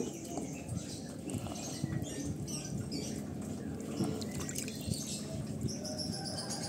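Scattered small wet clicks and splashes of water.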